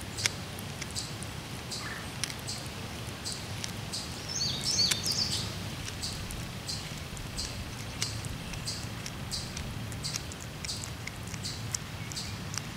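Domestic cat chewing a chipmunk, with short crisp crunches a few times a second. A bird chirps briefly about five seconds in.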